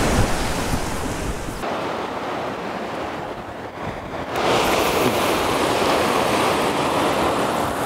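Ocean surf washing against the rocks below, with wind on the microphone. The rush drops lower for a couple of seconds, then swells up again.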